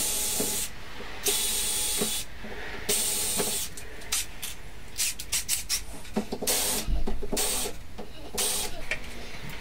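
Cordless driver running in about six short bursts, each under a second, driving screws into a wooden rail.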